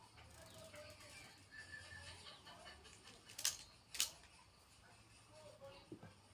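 Two sharp clicks about half a second apart from an Artemis CP2 CO2 air rifle, over faint background chirping.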